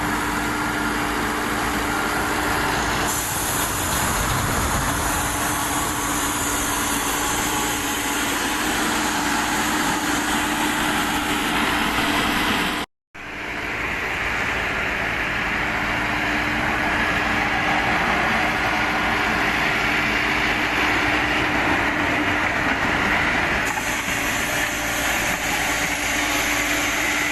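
9-ton wheeled excavator's diesel engine running steadily while digging, with a constant hum under the engine noise. The sound cuts out for a moment about halfway through, then resumes.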